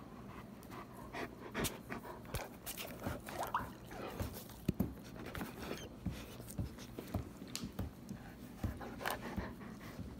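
German Shepherd panting close up, with irregular soft clicks and knocks throughout.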